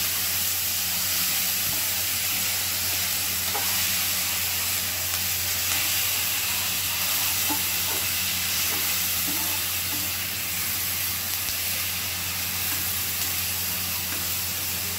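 Chopped tomatoes, curry leaves and dried red chillies sizzling in hot oil in a metal kadai while a metal spatula stirs them, with a few light scrapes of the spatula on the pan. A steady low hum runs underneath.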